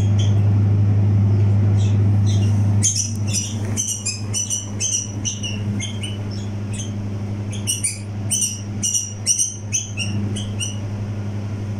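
Young bulbul chicks giving rapid, high begging chirps in short runs as they are hand-fed. The chirps come briefly at the start, then again from about three seconds in until near the end, over a steady low hum.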